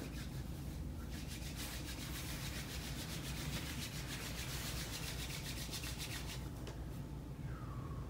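Hands rubbing briskly together to spread an essential-oil hand tonic: a fast, even run of rasping strokes that starts just under a second in and stops at about six and a half seconds.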